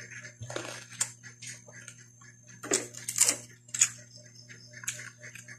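Close-up chewing of crispy fried fish: a run of irregular crunches and mouth sounds, the loudest a few seconds in, with small clicks of fingers on the plate and dipping bowl. A steady low hum runs underneath.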